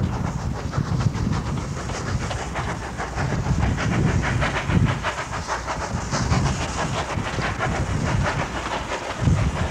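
Wood-burning steam locomotive running, its exhaust beating fast and evenly over a low rumble.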